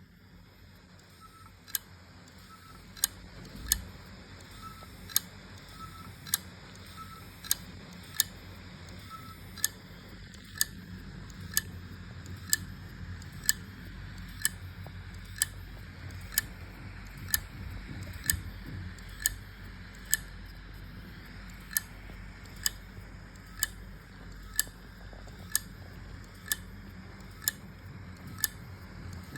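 WD My Passport 4 TB portable hard drive clicking sharply about once a second as its head and arm keep retrying to read the platters, over a low hum from the spinning drive that swells in over the first seconds. The repeated clicking is the sign of a failing drive that is never detected by the computer.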